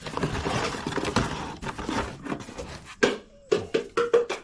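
Metal hand tools and sockets clattering as they are handled, with a run of sharp clicks near the end.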